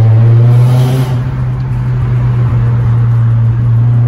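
Honda Prelude's four-cylinder engine and road noise heard from inside the cabin while driving, a loud steady low drone.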